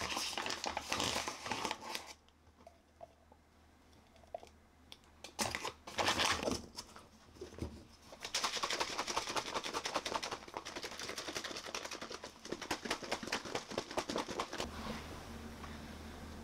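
Handling noise and a few knocks as a plastic shaker cup of milk and protein powder is picked up. Then the cup is shaken hard for about six seconds, the drink sloshing in rapid, even strokes.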